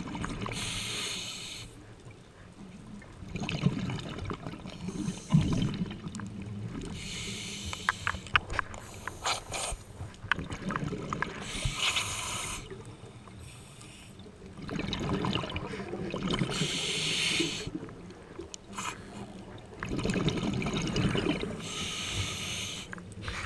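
Scuba diver breathing underwater through a regulator: a hissing inhale about every four to five seconds, with the low rumble and gurgle of exhaled bubbles between breaths. A run of sharp clicks comes midway.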